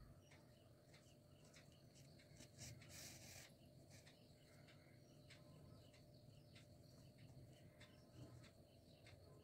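Near silence: faint room tone with scattered faint ticks and a brief soft hiss about three seconds in.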